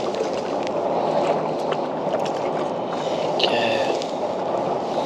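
A small bream splashing at the surface as it is lifted out on the line, over a steady wash of water around the kayak, with scattered small splashes and clicks. A brief high-pitched chirp comes about three and a half seconds in.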